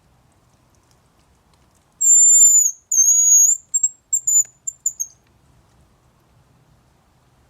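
Hazel grouse whistling its song: two long, very high, thin whistles, then a run of short notes that trails off, starting about two seconds in.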